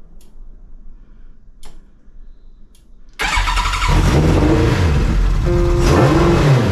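A Kawasaki Z1000J's air-cooled inline-four engine fires up suddenly about three seconds in and runs with its revs dipping and rising again. The engine is running after its carburettors were cleaned to cure fuel overflow. A few faint clicks come before it.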